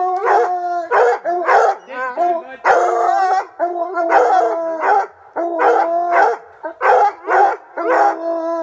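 Hunting hounds baying at a cougar treed above them: loud, repeated drawn-out bays and howls from more than one dog, overlapping. This is the steady baying that tells the hunters the dogs have the cat up a tree.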